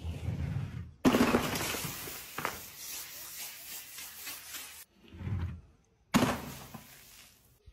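Drink bottles dropped from a height smashing onto concrete. Two sudden loud impacts, about a second in and again near the end, each followed by a fading hiss of spraying liquid, with a dull low thud in between.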